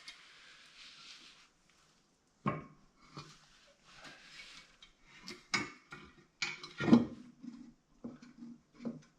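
Metal water pump parts being handled and fitted: a soft rustle at first, then a series of knocks and clinks, the loudest about seven seconds in, with quicker small clinks near the end.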